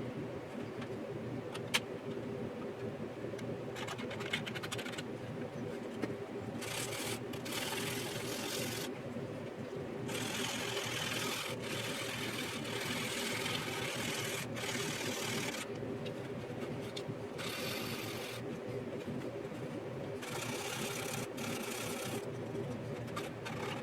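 Sandpaper rubbed over the plastic of a scale model airframe in scratchy passes of one to several seconds, smoothing filler putty. It is over a steady machine hum with a held tone, and there are a few small clicks early on.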